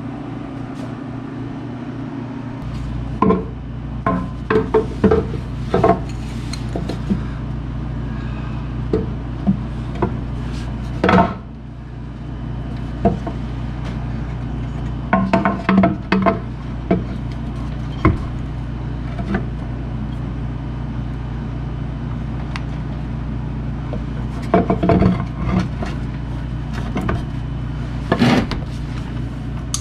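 Steady hum of a running fan or air unit, with scattered clinks and knocks of hand tools and parts being handled during engine work.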